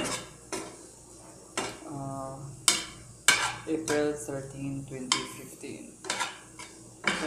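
A utensil stirring ground beef and cabbage in a frying pan. It scrapes and knocks against the pan irregularly, about once or twice a second.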